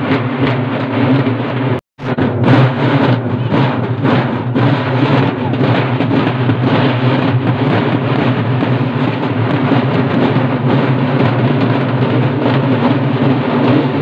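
A large group of urumulu folk drums played together in a fast, dense beat over a steady low hum. The sound drops out for an instant about two seconds in.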